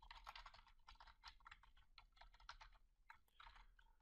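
Faint computer keyboard typing: quick runs of key clicks with short pauses between them.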